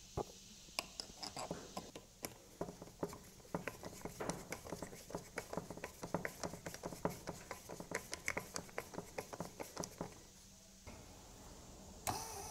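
Rapid small clicks, taps and light scrapes of hands fitting parts and wires back onto the small brushed electric motor of an oil change pump. Near the end a steady hum starts.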